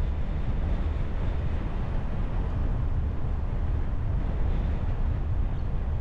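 Steady low rumble of a car driving: road and wind noise, strongest in the deep bass, with no distinct events.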